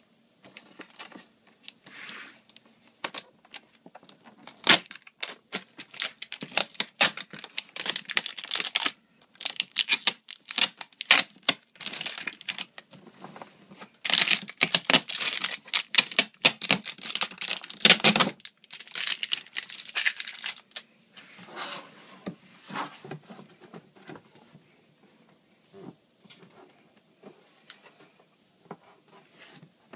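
Cardboard and foam packing of an iMac box being handled and pulled open: a busy run of short scrapes, rustles and clicks. It is loudest and densest from about a third of the way in to just past the middle, then sparser and quieter near the end.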